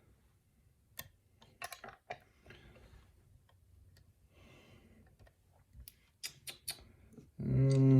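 Scattered light metallic clicks and taps of lock picks and a tension wrench being handled and set in a challenge lock's keyway. A man starts to speak near the end.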